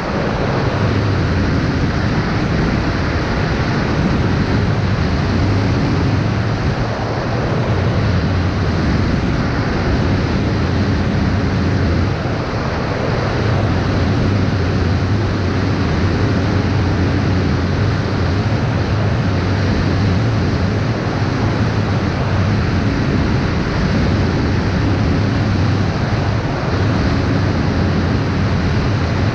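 Steady rushing noise of wind on the microphone, with a low drone underneath that swells and fades every few seconds.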